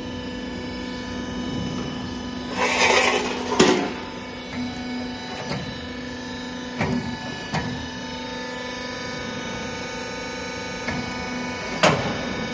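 Ridge tile forming machine running with a steady motor hum. A hissing rush comes about two and a half seconds in and ends in a sharp metallic clank, followed by a few scattered single knocks.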